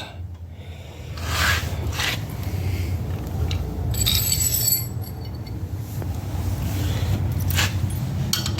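Metal hand tools clinking and scraping, as when digging through a toolbox for a wrench: a few separate scrapes and knocks, with a longer metallic jangle about four seconds in.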